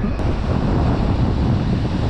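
Wind buffeting the microphone, with the steady rush of ocean surf beneath it.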